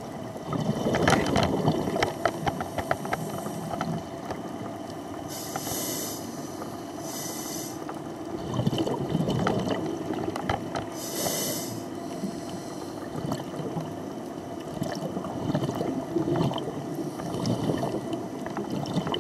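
A scuba diver's regulator breathing, heard underwater: bubbly exhalations about a second in, around nine seconds and again near the end, with high hissing inhalations in between.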